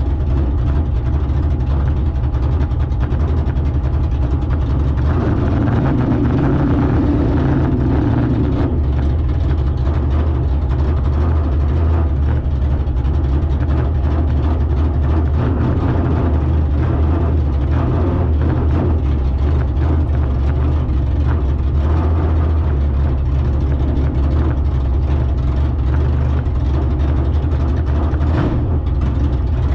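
A vehicle engine running steadily at low revs, its low drone holding level with no sharp revving or breaks.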